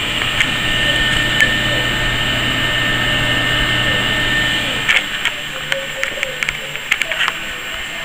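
Several computer case cooling fans running together in an open server case, a steady loud whoosh with a fixed whine over it. About five seconds in a low hum drops away and a few sharp clicks and knocks follow.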